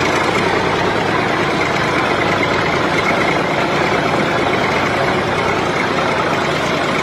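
A small machine's motor running steadily, a continuous even mechanical whirr without changes in speed.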